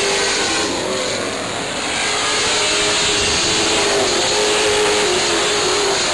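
Several Sportsman stock cars racing on a short track, their engines falling and climbing in pitch again and again as they lift for the turns and accelerate down the straights.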